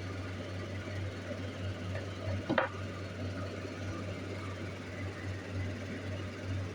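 Steady low hum of workbench room noise, with one sharp click about two and a half seconds in as a tool or the metal bezel is handled.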